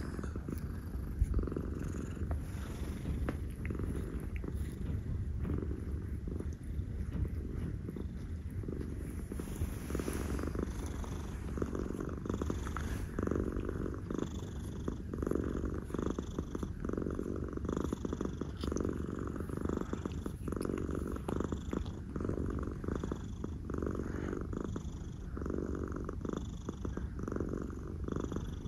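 A domestic cat purring steadily, close up, the purr swelling and fading in even pulses roughly once a second.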